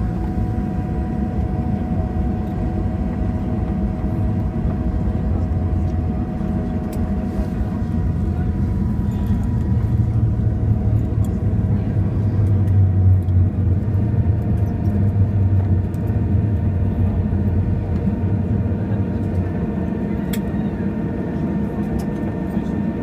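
Cabin noise of a Boeing 737-800 airliner: steady rumble from its CFM56 jet engines and airframe, with a few steady whining tones, heard from inside the cabin. The deep rumble swells for several seconds about ten seconds in, then settles back.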